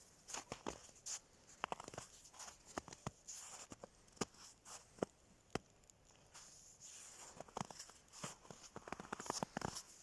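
A heap of burning matches crackling, with irregular sharp pops and snaps over a faint hiss.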